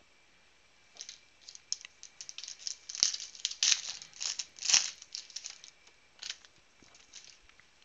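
Foil wrapper of a Prizm football card pack crinkling and tearing as it is ripped open by hand: a quick flurry of crackles, loudest about three to five seconds in, then a few stray crinkles as the wrapper is set aside.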